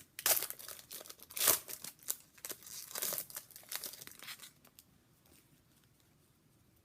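Foil trading-card pack wrapper crinkling and rustling in the hands, in a run of crackly bursts with the loudest about a second and a half in, dying away after about four and a half seconds.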